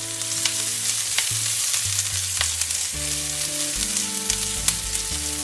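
Sliced onion and chopped garlic sizzling steadily in hot vegetable oil in a frying pan. A spatula scrapes and stirs them, with a few sharp clicks against the pan.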